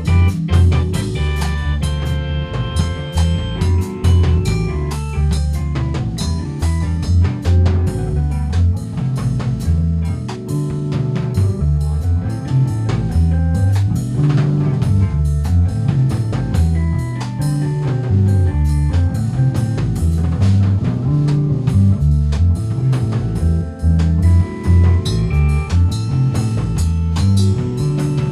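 Instrumental jazz-rock band track: drum kit keeping a busy beat under electric bass, electric guitar, electric piano and organ.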